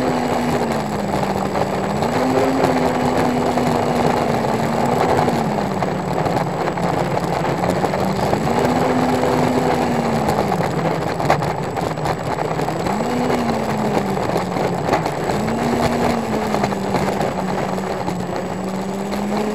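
Electric motor and fan units of a Dynam Turbo Jet RC model running as it rolls along pavement, with a steady droning tone that rises and falls about five times as the throttle is worked, over rolling and rushing noise. The drone is the harmonic sound the owner tried to cure by balancing.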